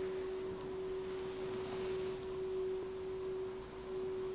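A faint, steady hum on one unchanging mid-low pitch, over light background hiss.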